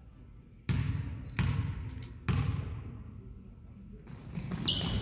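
A basketball bounced three times on a hardwood gym floor, each bounce ringing out in the hall, as the shooter dribbles before a free throw. Short high sneaker squeaks follow near the end.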